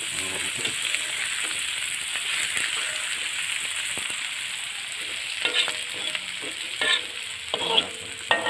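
Chopped vegetables and spice paste sizzling steadily in a hot oiled wok while being stir-fried with a metal spatula. Several spatula strokes scrape and clink against the wok in the last few seconds.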